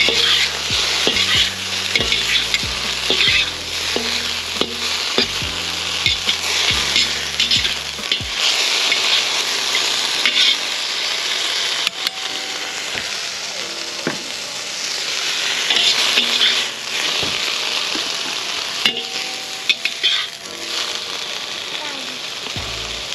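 Broccoli sizzling and steaming in a hot King Kooker wok as it is stir-fried, a steady loud hiss with scattered sharp clinks and scrapes of a metal spatula and ladle against the wok.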